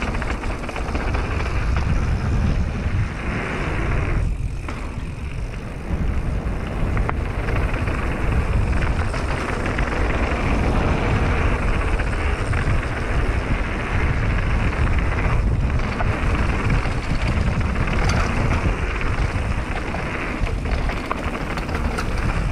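Wind buffeting the microphone and knobby mountain-bike tyres rolling fast over a loose gravel trail, a continuous rushing noise with a couple of brief lulls, about four and fifteen seconds in.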